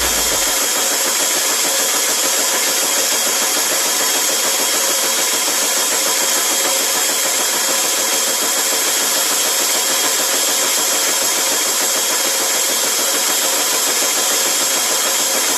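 High-speed automatic stamping press, about 45 tons, running continuously: a steady, dense mechanical racket with no pauses, its strokes too fast to pick out one by one.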